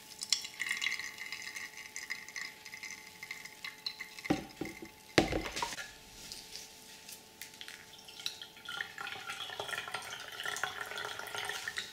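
Blended watermelon juice pouring from a blender jar into a mesh straining bag, then the wet bag being squeezed by hand so juice trickles into a glass teapot below. Two knocks come at about four and five seconds in, the second the loudest.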